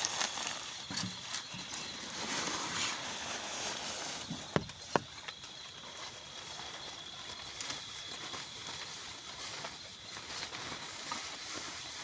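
Steady hiss of rain, with two sharp knocks in quick succession about halfway through.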